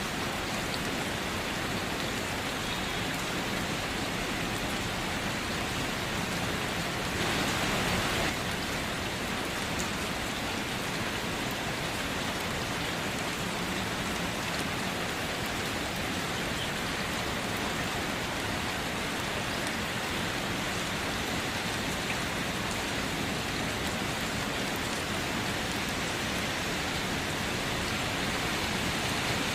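Steady rain falling, an even hiss of drops hitting a surface, with a brief swell in intensity about seven seconds in.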